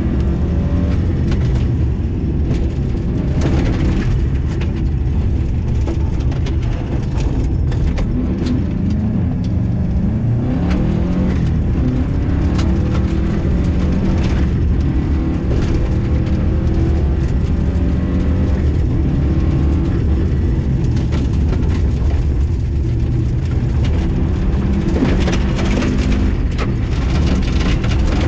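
Rally car engine heard from inside the cabin, revving up and easing off through the gears as the car runs a gravel stage. Sharp clicks of gravel strike the car throughout.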